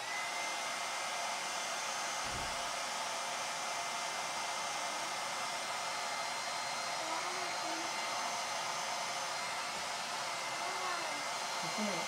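Handheld Revlon hair dryer switching on and running steadily, a constant rush of blown air with a thin steady whine.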